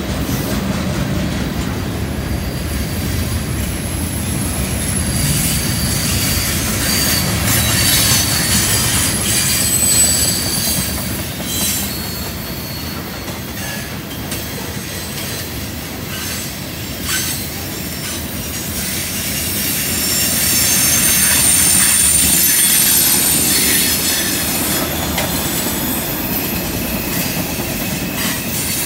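Freight train cars rolling past on a curve: a steady rumble of steel wheels on rail with clicks over the joints, and high-pitched wheel squeal from the curve that comes and goes, loudest about two-thirds of the way through.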